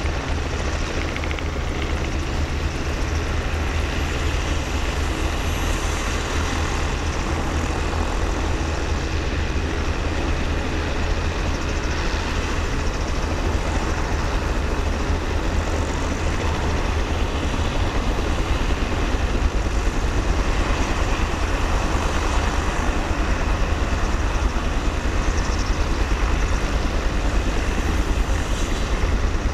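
Steady low rumble of an idling truck engine. A low hum within it dies away about halfway through.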